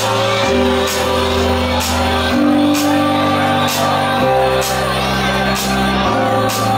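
Loud music in a crowded bar: deep bass notes shift every second or two under a steady beat, with voices singing and shouting over it.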